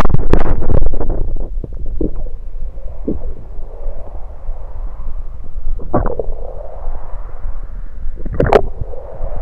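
Stomach gurgling as swallowed soda moves into it, picked up close against the belly. A loud gush in the first second is followed by short separate gurgles about two, three, six and eight and a half seconds in, over a steady low rumble.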